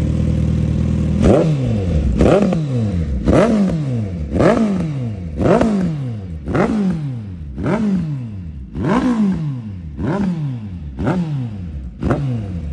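Suzuki Hayabusa Gen3 1340 cc inline-four running through a newly fitted SC-Project exhaust: idling, then blipped about a second in and again roughly once a second, each rev climbing sharply and falling back toward idle, about eleven times.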